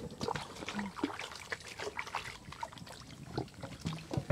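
Water pouring and trickling while oranges are washed by hand, with irregular knocks and clatter of the fruit and containers being handled.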